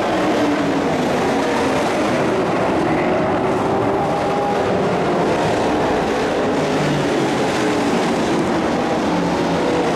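Several dirt-track stock race trucks' V8 engines running around the oval together. Their pitch rises and falls as the trucks pass and lap the track.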